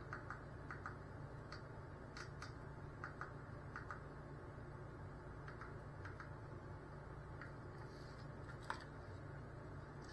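Irregular light clicks and taps, a couple of dozen, scattered over a low steady hum, with one sharper click near the end.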